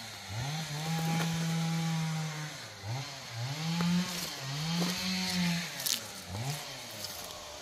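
A small engine revving up and down over and over, each rev rising quickly and held high for one to two seconds before dropping away, with a few light clicks.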